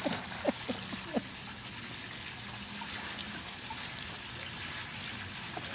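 Swimming-pool water settling after splashing: a few drips and plops in the first second or so, then a faint, steady trickle and lapping.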